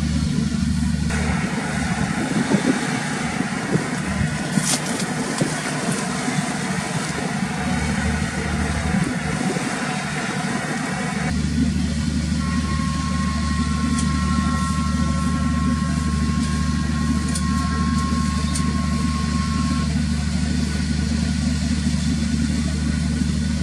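Steady low drone of the Express Bahari 2E fast ferry's engines as it approaches, mixed with a rushing hiss of water and wind that stops abruptly about eleven seconds in. A thin steady whine joins the drone in the second half.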